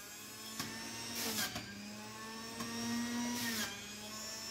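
Sujata electric juicer's motor running steadily, with two brief grinding rushes as carrot pieces are pressed down onto the spinning cutter with the plastic pusher.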